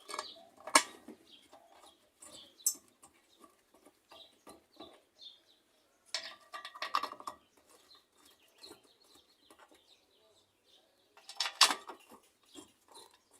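Scattered clinks and knocks of metal washing-machine parts and bolts being handled and fitted, with sharp clinks about a second in and a cluster near the end. Bird calls sound faintly between them.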